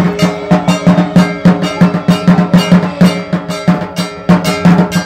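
Music with a fast, steady percussive beat, about four strikes a second over a sustained low tone; it cuts off right at the end.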